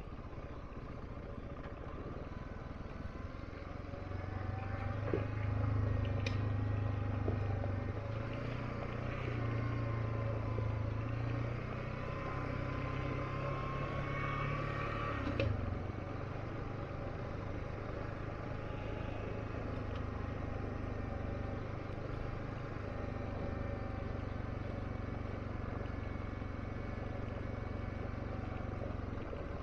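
Single-cylinder 650 cc dual-sport motorcycle engine running. It grows louder about four seconds in, rises steadily in pitch until about fifteen seconds, then drops back suddenly and runs on more evenly.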